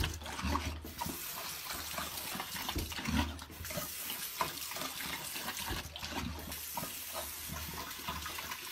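Bathroom faucet running a thin stream into a sink basin with a steady hiss, broken by small irregular splashes as a pet drinks from the stream.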